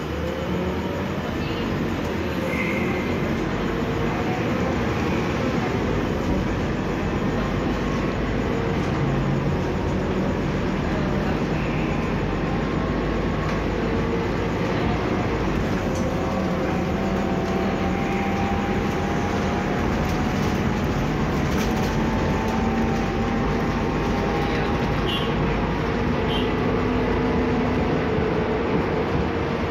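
Cabin noise inside a moving Scania articulated bus: a steady drone of engine, drivetrain and road. About halfway through, a faint whine rises slowly in pitch for several seconds.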